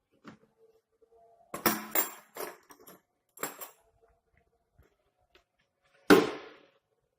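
Hard plastic parts of a cordless drill kit and its carry case being handled: a run of clattering clicks and rattles, then one loud knock as something is set down about six seconds in.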